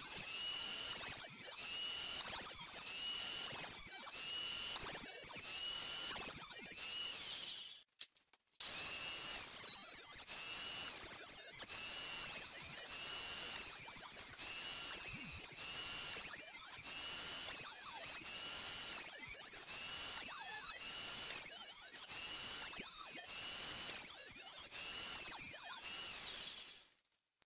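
Benchtop thickness planer running and cutting a glued-up board, its motor giving a high whine that wavers up and down about once a second. The sound drops out briefly about eight seconds in, then resumes and fades away near the end.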